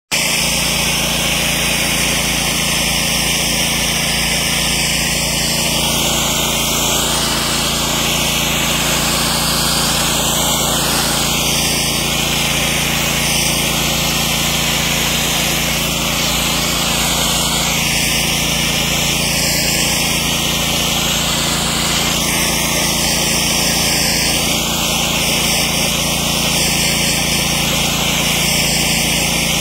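Water jetting from a hose onto concrete, rinsing it off in a steady loud hiss that shifts in tone as the stream moves over the surface. A motor hums steadily underneath.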